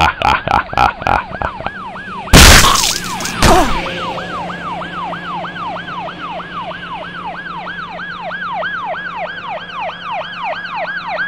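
An emergency-vehicle siren in a fast yelp, each call sweeping up and down in pitch about three times a second. In the first second there is a rapid run of sharp cracks, and a loud noisy blast about two seconds in lasts about a second, with a shorter one just after.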